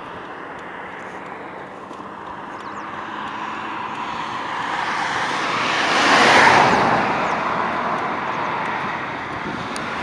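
A vehicle passing by: a steady noise that swells to its loudest about six and a half seconds in, then fades away.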